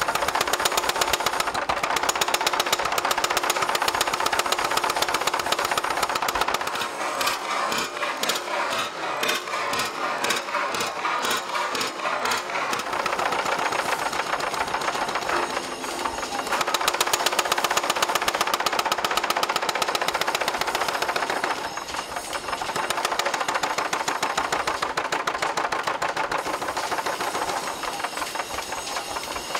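Mechanical power hammer pounding a red-hot iron bar in rapid, repeated blows. The rhythm slackens briefly a few times.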